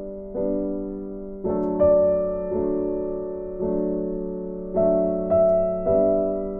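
Background music: soft piano playing slow chords, a new chord struck about once a second and each fading out before the next.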